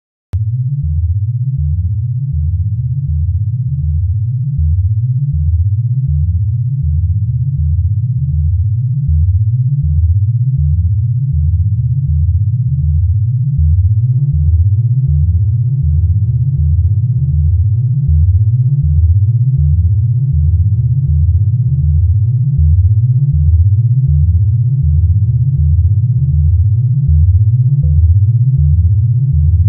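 Procedurally generated electronic synthesizer music made in ChucK: a fast repeating low synth pattern, with a layer of higher steady tones joining about halfway through.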